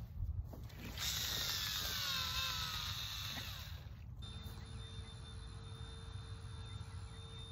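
Fishing reel whirring as line is cranked in, with a slowly falling pitch, stopping abruptly about four seconds in; a faint steady hum follows.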